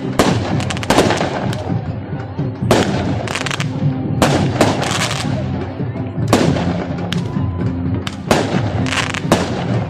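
Daytime fireworks bursting overhead: a string of about ten sharp bangs, roughly one every second, each with a short echo. Music and crowd chatter run beneath.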